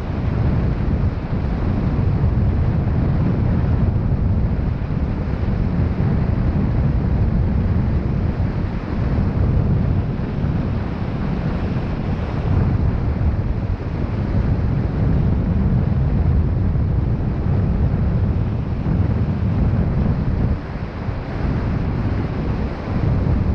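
Wind buffeting the microphone: a loud, steady low rumble of rushing air with no other distinct sound, briefly easing a little before the end.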